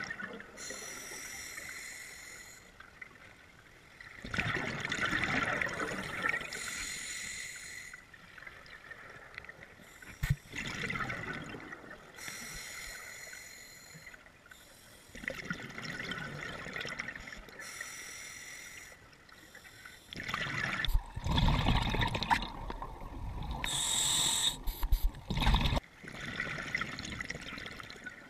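Scuba diver's breathing through a regulator underwater: hissing inhalations and bubbling exhalations that swell and fade every few seconds, with a few sharp clicks in the longer surge near the end.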